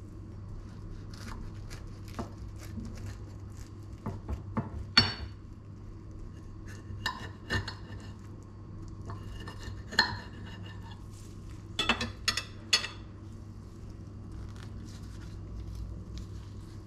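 Steel knife and fork clinking and scraping against a ceramic plate while cutting an omelette: scattered sharp clinks in small clusters, over a steady low hum.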